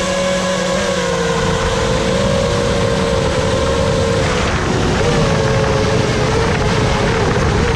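FPV freestyle quadcopter's motors and propellers whining steadily over a rushing noise. The whine's pitch dips about halfway through and rises again a moment later.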